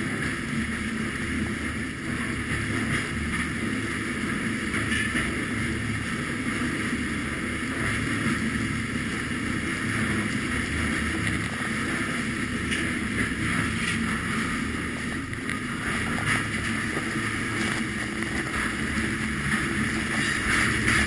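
Steady rumble and rattle of a moving freight train, heard from the end platform of a covered hopper car: steel wheels rolling on rail with scattered small clanks, and wind on the microphone.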